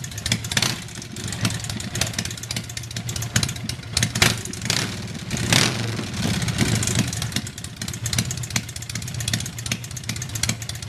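Harley-Davidson V-twin motorcycle engine idling, its exhaust pulses coming unevenly, swelling briefly about four to six seconds in.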